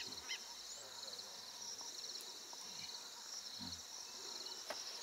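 Steady, finely pulsing chirr of insects, with a few short bird chirps near the start.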